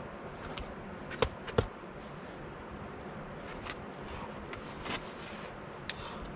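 A boulderer's hands and rubber-soled climbing shoes slapping and scuffing on the rock while he pulls over the top of a boulder: two sharp slaps about a second in, then a few lighter taps over a steady outdoor hiss.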